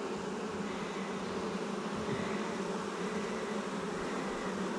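Honeybees buzzing steadily, a large number of them flying around and crowding the front of a hive that has just been opened and inspected.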